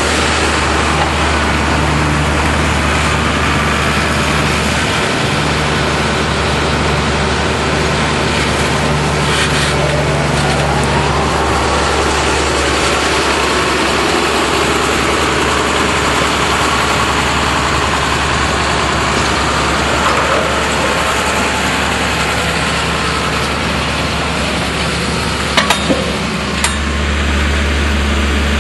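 Tractor engine running steadily with a deep hum, a faint rising whine about halfway through and a few sharp clicks near the end.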